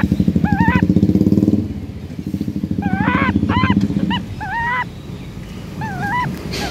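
A motorcycle engine running close by, pulsing rapidly, easing briefly near two seconds and fading away after about four seconds. Over it a bird repeats short whistled notes that swoop up and down.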